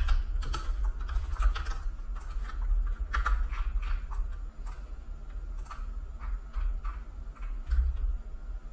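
Scattered clicking at a computer, about one or two clicks a second and thinning out toward the end, over a steady low hum.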